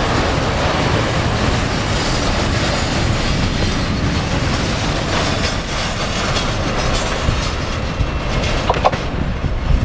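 Double-stack intermodal freight train's loaded well cars rolling past, a steady rumble with wheels clacking over rail joints. The high part of the noise thins about nine seconds in as the last car goes by.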